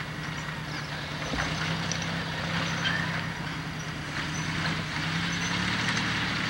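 An off-road Jeep's engine running steadily at low speed as it crawls over loose rock, growing a little louder as it comes closer, with scattered small clicks of stones under the tyres.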